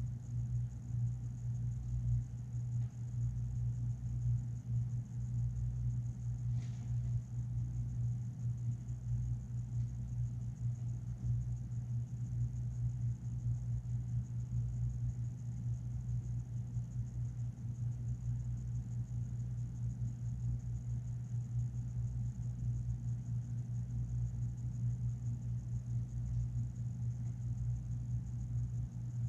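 A steady low machine hum with a faint, constant high whine above it, like a fan or equipment running, and a single faint tick about seven seconds in.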